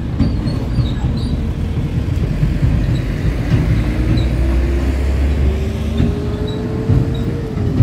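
Motor vehicle engine running close by with a heavy low rumble, a whine rising slowly in pitch through the second half as it speeds up, then falling away just before the end.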